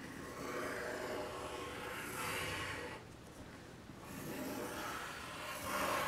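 Pencil scratching on paper as two circles are drawn one after the other, with a short pause between them about halfway through.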